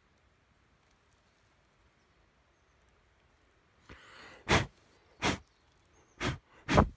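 Four short, loud rustling scrapes close to the microphone, spread over about two and a half seconds, after a brief softer rustle. The first four seconds are near silent.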